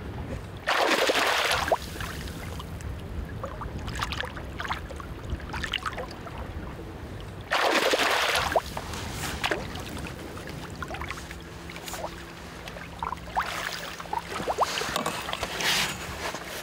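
A hooked fish splashes hard at the water's surface twice, about a second in and again about halfway, as it is played to the boat. Water laps against the hull between the splashes.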